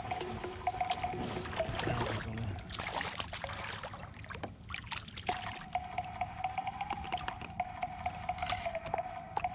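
Sea water splashing and dripping as a hooked bass is lifted out of the water into a kayak, with short knocks and splashes in the first five seconds. A steady musical tone plays in the background, dropping out during the splashing and returning after about five seconds.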